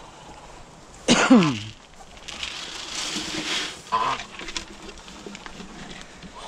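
Dry grain feed poured from a plastic can into a wooden trough: a rattling hiss lasting about a second and a half, with a short knock just after. About a second in comes a louder short groan that falls in pitch.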